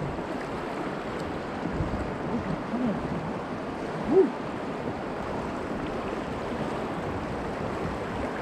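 Swift river water rushing around the kayak, with wind buffeting the microphone as a steady noise. About four seconds in, a short rising-then-falling tone stands out briefly as the loudest moment, with a couple of fainter ones a second or so before it.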